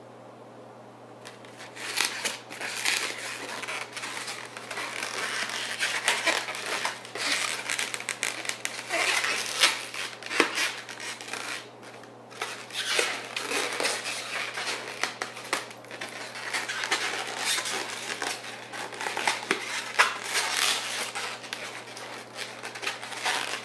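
Latex modelling balloons being handled and twisted, rubbing and squeaking against each other and the hands, with a few short squeaks. It starts about a second in.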